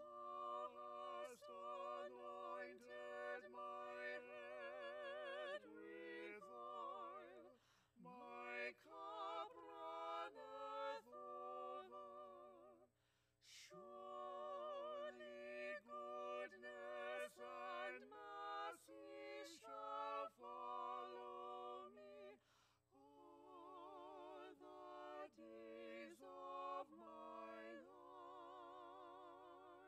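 Small mixed vocal ensemble singing a slow, unaccompanied piece with vibrato, in phrases broken by short breaths.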